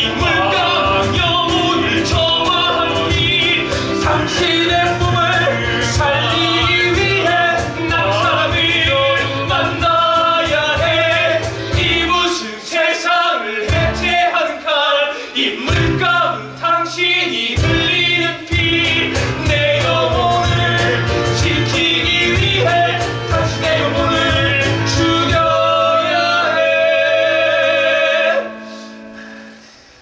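Male voices singing a musical-theatre song over band accompaniment. About halfway through, the accompaniment breaks into short stop-start hits, then the full sound returns. The song ends a couple of seconds before the close.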